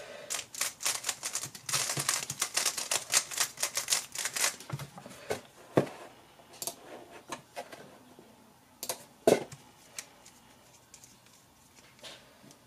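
GAN 11 M Duo 3x3 speedcube being turned fast, a dense stream of rapid plastic clicking for about the first four and a half seconds. After that come scattered single clicks and a few knocks as the cube and desk items are handled, the loudest knock about nine seconds in.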